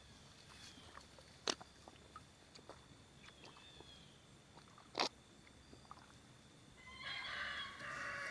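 Two sharp knocks or clicks a few seconds apart, then a farm animal calling once near the end, a rough call lasting about a second and a half.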